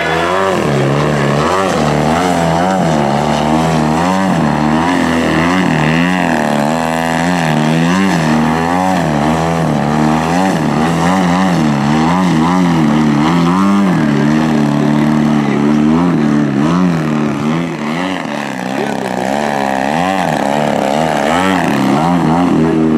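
Large radio-controlled aerobatic model plane's engine and propeller, revving up and down over and over while the plane hangs nose-up in a hover low over the runway.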